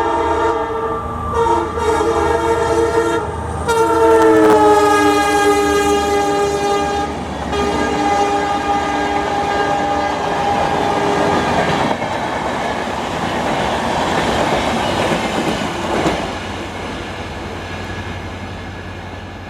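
Indian Railways locomotive air horn sounding: several short blasts run together, then two long blasts, its pitch dropping as the train passes. After that comes the steady rumble and wheel clatter of the passing train, fading near the end.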